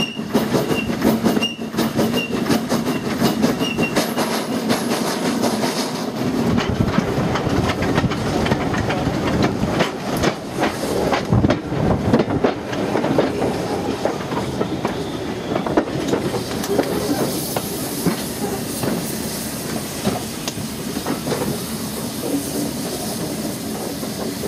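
Peckett 0-6-0 industrial steam locomotive running under steam, heard from beside its cab: a dense, rapid rattle of exhaust beats and wheels on the rails. A steady hiss joins in over the last third.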